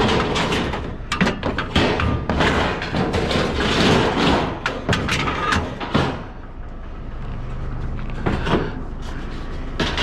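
Scrap metal being shifted and loaded: a run of irregular clanks, knocks and thumps for about six seconds, then a quieter stretch with a low steady hum and a few single knocks.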